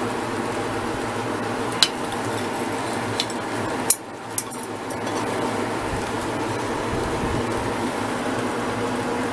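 Steady machine hum with four sharp metal clinks, the loudest about four seconds in, where the hum briefly drops out before coming back.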